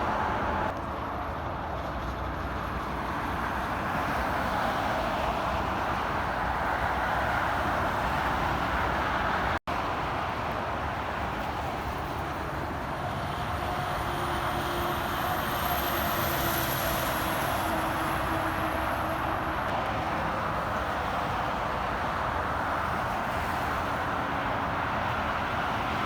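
Steady highway traffic noise of trucks and cars passing, cut off for an instant about ten seconds in. A faint high whistle sliding slightly down in pitch runs through the middle of the stretch.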